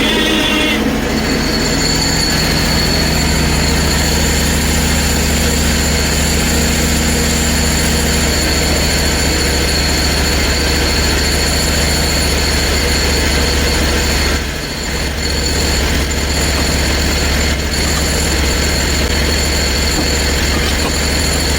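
Hud-son portable band sawmill running with its band blade cutting through a hard maple log: a steady engine drone under a high, even whine from the blade. The sound dips briefly about two-thirds of the way through, then carries on.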